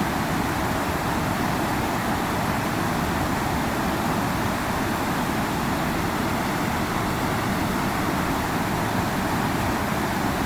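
Steady rushing of flowing river water, an even noise with no change in level.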